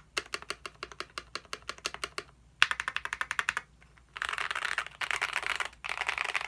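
GMMK Pro mechanical keyboard with lubed Akko Lavender switches on an aluminum plate, PBT keycaps and foam and tape mods, typed on fast: runs of rapid keystrokes broken by short pauses, the bursts from about four seconds in so fast the strokes run together.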